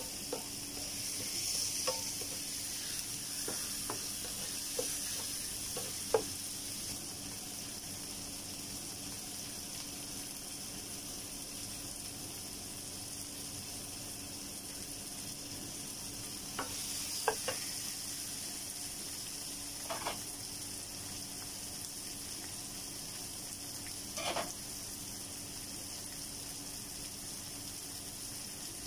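Chopped tomato and onion sizzling in oil in a nonstick frying pan, with a few short clicks and scrapes of a wooden spoon against the pan.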